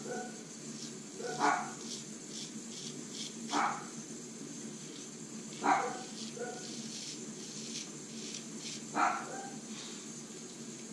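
A dachshund barking, a single short bark every two to three seconds, four in all, with the faint scrape of a straight razor on stubble in between.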